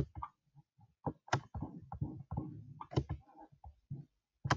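Irregular computer clicks, roughly two or three a second, as code blocks are clicked and dragged into place on screen.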